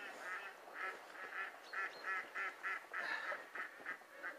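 Ducks calling: a long run of short, evenly spaced calls, about three a second.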